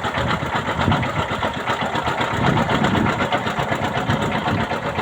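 A small boat's engine running steadily with a fast, even rhythm.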